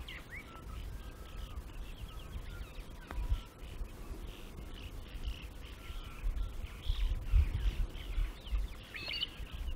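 Swallows twittering: a busy run of short, high chirps, with a clearer call near the end. A low rumble runs underneath.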